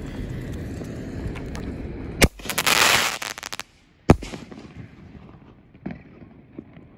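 A 5-inch canister shell firework in the air: a steady hiss for about two seconds, then a sharp bang followed by about a second of loud, dense crackling, and a single louder report about four seconds in, with a few faint pops after it.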